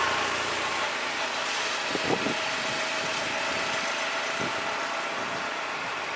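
Road traffic of cars, buses and three-wheelers with engines idling and creeping slowly along, a passing vehicle fading away at the start. A brief knock about two seconds in.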